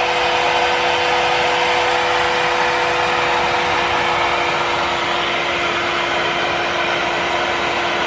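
Revair reverse-air hair dryer's suction motor running on speed level 2: a steady rushing whoosh with an even hum, as the wand draws a section of curly hair through it.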